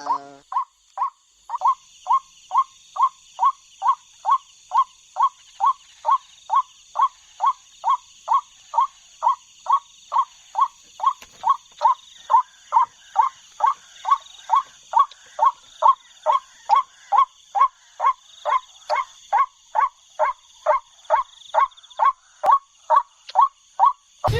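White-breasted waterhen (ruak-ruak) calling: one short, harsh note repeated evenly about twice a second, the monotonous call used to lure the birds into the nets. A steady high-pitched drone runs behind it.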